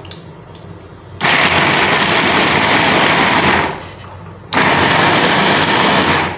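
Small electric food chopper running in two bursts of a few seconds each, pulsed to chop raw green mango coarsely. A steady high whine from the motor sits over the whirring of the blades.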